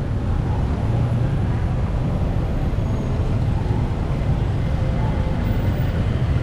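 Busy street traffic: motorbikes and cars running, a steady low rumble.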